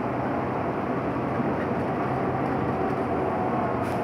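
Transit bus engine and road noise heard from inside the cabin as the bus drives along: a steady low drone.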